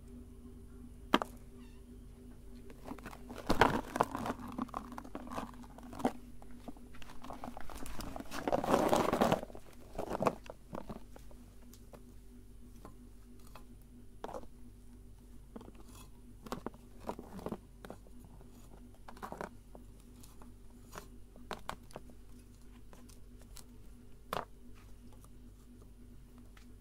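Close-up handling of mini wafer ice cream cones: a wrapper crinkling and wafer crunching in two louder stretches, with scattered light taps and clicks of cones set down and handled. The motorcycle engine is not running.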